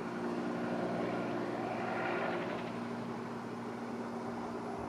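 Light two-bladed helicopter flying overhead, a steady drone of engine and rotors that swells slightly about two seconds in.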